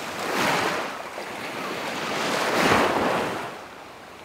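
Small waves breaking and washing up over the shallows at the shoreline, surging twice, about half a second in and again near three seconds, then fading away.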